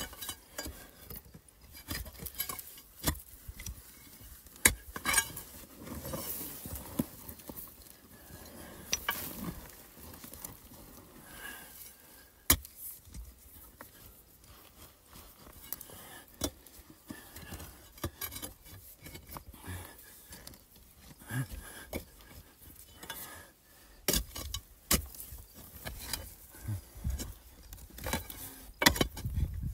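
A metal digging tool scraping and knocking against stone and dry soil, with irregular scrapes and a few sharp clinks, as earth is dug and raked out of a hole beneath a rock.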